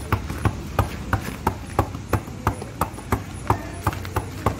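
A steady, even rhythm of sharp taps or slaps, about three a second.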